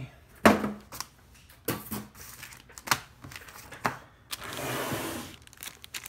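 Packaging being handled on a desk: a sharp thump about half a second in, a few lighter knocks, then about a second of plastic wrap crinkling around the boxed UPS unit near the end.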